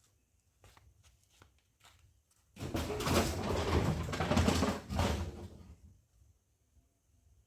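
Pit latrine wall being knocked down: a few light knocks, then from about two and a half seconds in a loud, rough crash and rattle of falling wall debris lasting about three seconds before it dies away.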